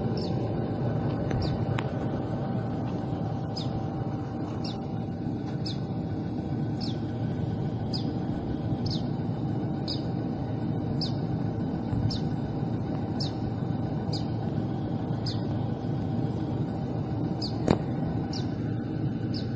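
A steady low rumble with a faint hum, with short high falling chirps repeating every second or so and a single sharp click near the end.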